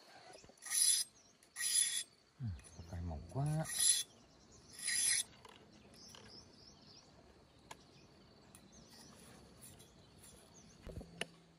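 Machete blade scraping along bamboo: four rasping strokes in the first half, about a second apart.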